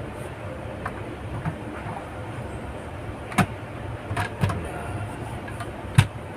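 A few sharp clicks and knocks from handling the opened casing of a Lenovo ThinkCentre M710q mini PC, the loudest about three and a half seconds in and another near the end, over a steady low background hum.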